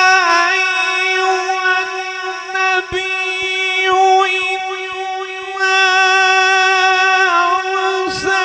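A man's solo Quran recitation (tilawat) in melodic tajweed style, sustaining one long note with wavering ornamental turns in the middle of it.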